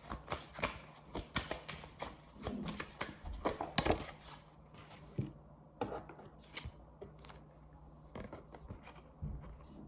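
Tarot cards being shuffled by hand: a quick run of papery clicks and rustles for about four seconds, then only a few scattered card taps and slides.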